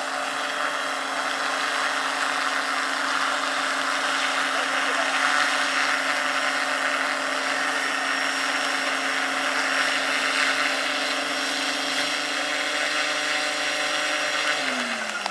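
Large-scale electric model helicopter (AS-350 Ecureuil, 2.5 m rotor) hovering low with a steady whine over the rotor's whoosh. Near the end, once it has set down, the whine falls in pitch as the motor and rotor start to spool down.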